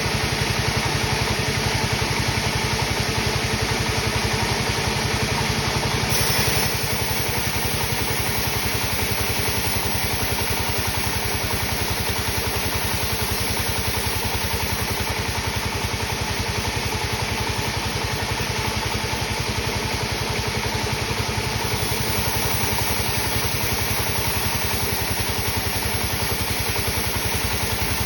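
Sawmill machinery running steadily, an engine with an even low pulse and no break, with a slight change in tone about six seconds in.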